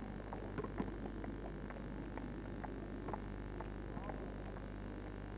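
Steady electrical mains hum and hiss on an old video recording, with faint scattered clicks.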